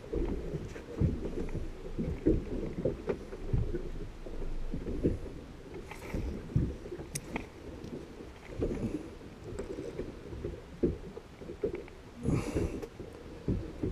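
A small fishing boat rocking on the water, with irregular low knocks and slaps of water against the hull and a few sharp clicks. A short rush of noise comes near the end.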